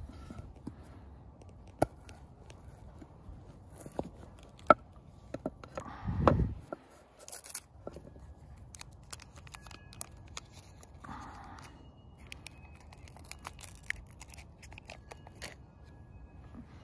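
A paper butter wrapper crinkling and tearing as it is peeled off a cut piece of butter, with scattered sharp taps and clicks of the knife and butter on a wooden cutting board. A loud low thump comes about six seconds in.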